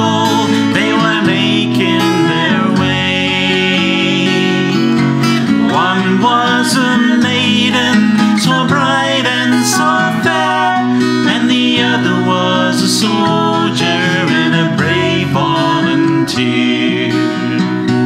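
A man and a woman singing a traditional folk song together, accompanied by an acoustic guitar. The voices drop out near the end, leaving the guitar playing alone.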